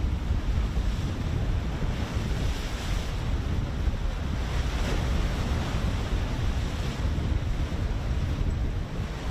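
Wind buffeting the microphone over open sea, a steady rushing noise heaviest in the low end, with no distinct events.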